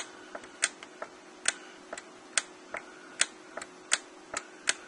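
Korg M1 front-panel buttons clicking as they are pressed repeatedly, about two to three clicks a second at an uneven pace, paging through the synth's Global mode menus. A faint steady hum runs underneath.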